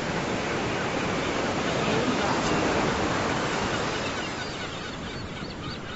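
Ocean surf: a wave swells to its loudest about two to three seconds in, then washes back and eases off.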